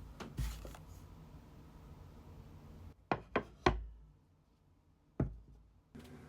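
Sharp knocks on a hard surface: one about half a second in, three in quick succession about three seconds in, and one more about five seconds in.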